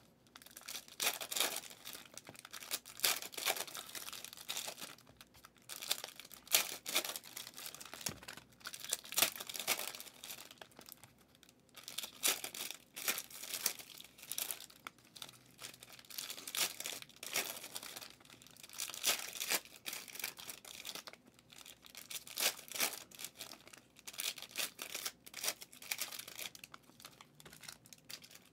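Trading card pack wrappers being torn open and crinkled in quick, irregular bursts, pack after pack.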